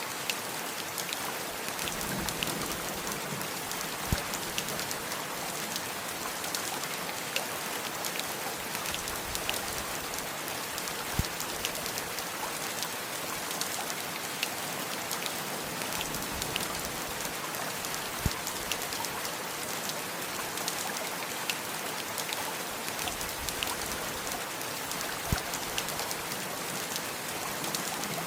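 Steady rain, an even hiss with scattered louder drips and drops every second or so.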